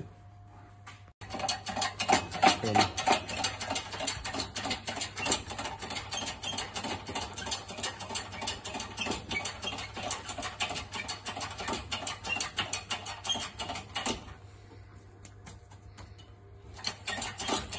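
Hydraulic shop press running with a fast, dense clatter as its ram is worked down onto a seized piston in a Rootes 1600 engine block. The clatter starts about a second in, eases off for a couple of seconds near the end, then starts again.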